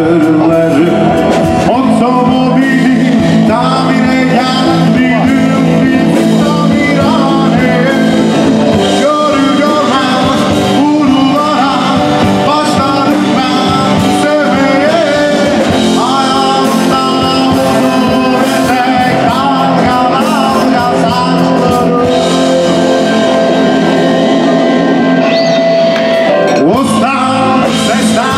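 A live band playing a rock song with a vocalist singing over guitar and other instruments, loud and continuous.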